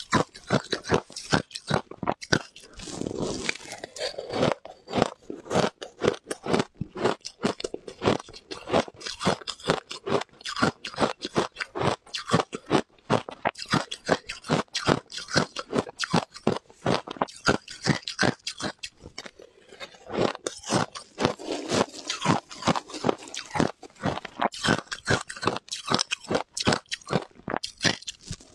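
Ice being chewed, a rapid run of crisp crunches several times a second, with short softer pauses between bites.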